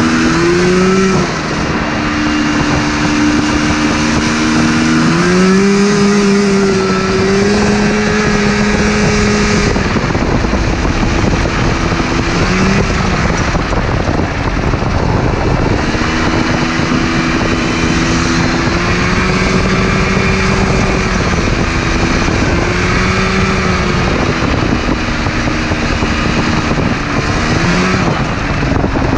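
Go-kart's Yamaha Phazer 480cc two-stroke twin snowmobile engine running under load at road speed, its pitch rising and falling with the throttle, with wind rushing over the open kart.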